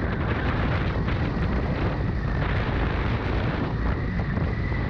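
Steady wind rush and rumble on the camera microphone of a Suzuki Gixxer SF motorcycle riding at speed on a highway.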